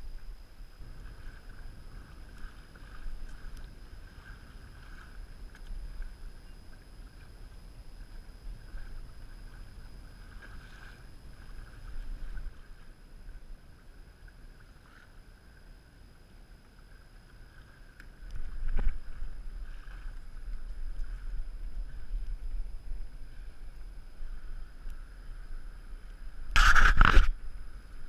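Water sloshing against the plastic hull of a sit-on-top fishing kayak under way on choppy sea, with a low rumble of wind on the microphone. About a second before the end comes a brief, loud rush of noise.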